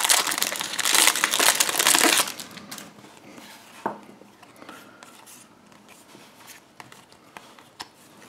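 Foil trading-card booster pack crinkling loudly as it is torn open and pulled apart, stopping about two seconds in; then soft clicks and rustles of a stack of cardboard trading cards being handled and fanned out.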